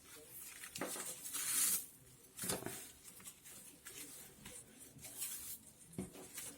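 Palm frond strips rustling and crackling as they are handled and wrapped around the woven figure, with irregular scratchy rustles and a few sharper crackles.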